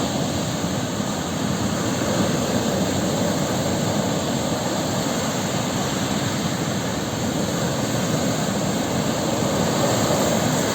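Sea waves: a continuous rush of surf that swells slightly a couple of seconds in and again near the end.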